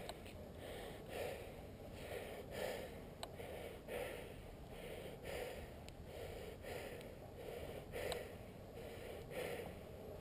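A person breathing hard, with short, even breath sounds about every two-thirds of a second: winded from exertion.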